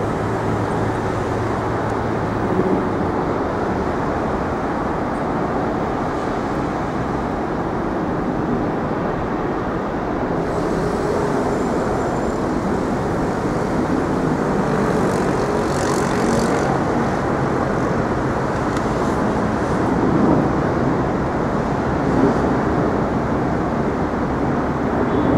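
Steady city street traffic noise: cars and other vehicles running past on a busy road, with a higher hiss joining about ten seconds in.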